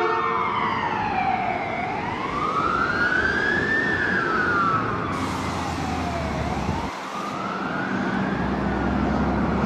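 Ambulance siren in a slow wail, rising and falling, about one full cycle every four and a half seconds. Road-traffic rumble runs underneath and grows near the end.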